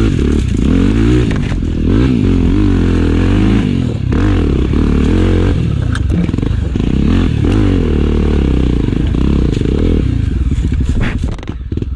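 Trail motorcycle engine revving up and down over and over, its pitch rising and falling in quick surges, with a few knocks; it eases off near the end.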